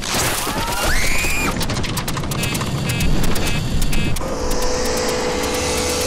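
Dramatised sound of an airliner coming down for an emergency landing: loud rushing noise with a rising whine about a second in, then a steady held tone joining from about four seconds in.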